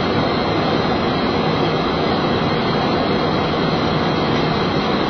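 Steady rush of airflow and engine noise on a Boeing 737 flight deck during the climb, even and unbroken.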